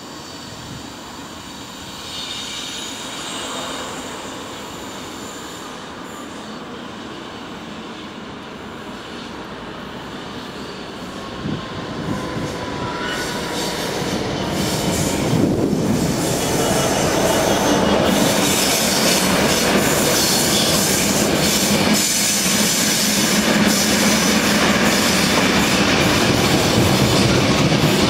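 A diesel locomotive hauling a freight train of open wagons approaches and passes, growing louder about halfway through. A faint wheel squeal comes before that, and then the wagons roll by steadily with clickety-clack over the rail joints.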